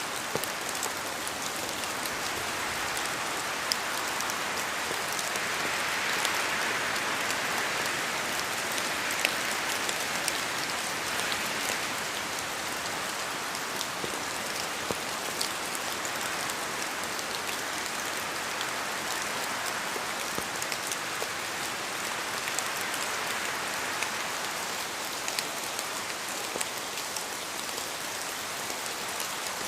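Steady rain in a forest, with scattered sharper drops falling from the trees. The rain swells for several seconds from about five seconds in, then settles back.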